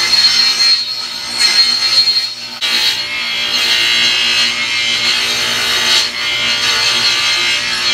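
Table saw blade cutting into the end of a round wooden pole as the pole is turned against it, shaving the end down to a cone point. The cutting comes in short spells for the first couple of seconds, then runs steadier from about two and a half seconds in.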